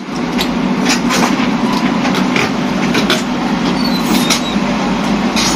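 Wheel loader's diesel engine running hard under load as its bucket pushes a tipped-over dump truck back upright, with scattered short knocks and clanks of metal.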